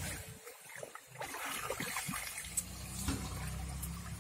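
Water trickling and splashing as a pump hose runs water into a stranded sand barge. A low steady motor hum comes in after about a second and a half.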